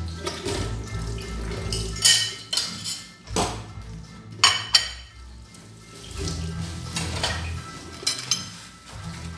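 Dishes and cutlery clattering as they are washed by hand: a string of irregular clinks and knocks.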